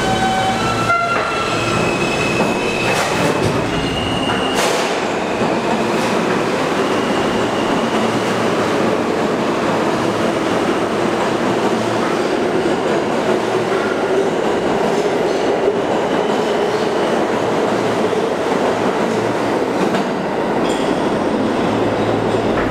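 R160 subway train pulling out of the station and running past on the platform track, a loud steady rumble of wheels on rail. Thin high tones sound over it in the first few seconds.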